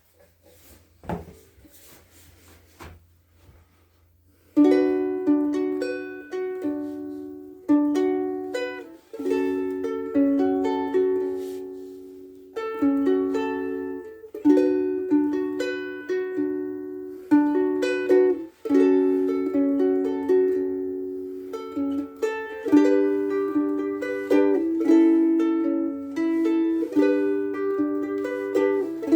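Soprano ukulele played solo: a few faint knocks, then from about four and a half seconds in, plucked chords and melody notes that ring and die away between attacks.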